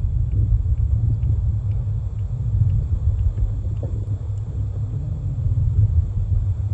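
Low, steady rumble picked up by a camera held underwater, with faint ticks about twice a second.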